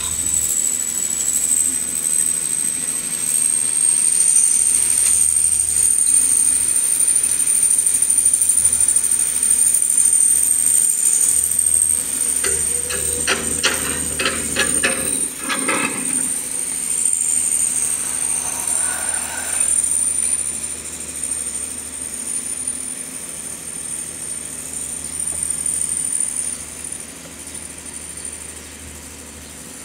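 Oil-transfer pump running to feed a metered dispensing gun filling a Caterpillar generator engine, with a steady high whine over a low hum. A quick run of clicks lasts a few seconds about halfway through.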